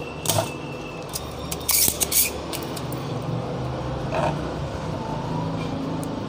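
Spring-loaded desoldering pump clicking and snapping as it is cocked and fired to suck molten solder off IC pins. There is a snap near the start, a quick run of sharp clicks around two seconds in, and another click about four seconds in, over a steady low hum.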